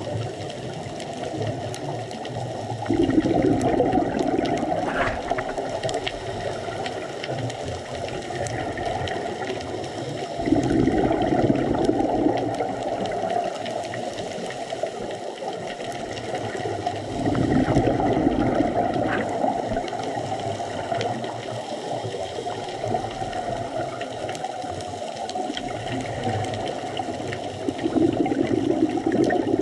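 Scuba diver breathing through a regulator underwater: four bubbling exhalations, each two to three seconds long and several seconds apart, with a quieter watery hiss between them.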